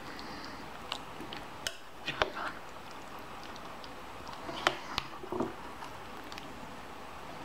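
A spoon stirring chicken and zucchini soup in a crock pot: soft wet squishing of vegetables in broth, with scattered clicks and knocks of the spoon against the pot. The sharpest knocks come about two seconds in and again just before five seconds in.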